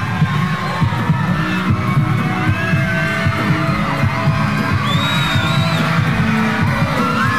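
Live concert music with a steady low beat, the start of the next song, under an audience cheering and screaming.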